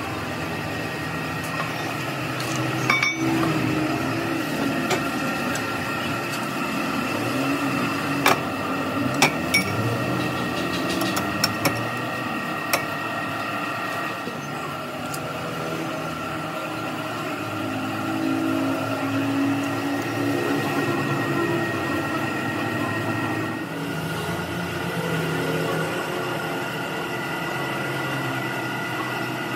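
Steady workshop machine hum with a few sharp metal clinks of tools knocking against the steel gear, spread over the first half.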